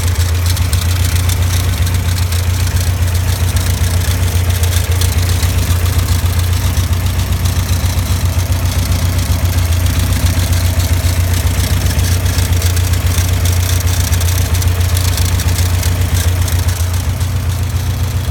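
Super Seven 1700 SS engine idling steadily, with the abnormal noise that the owner traces to the alternator.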